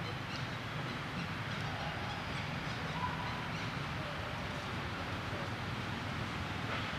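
Steady outdoor background noise with a low rumble, and a faint brief tone about three seconds in.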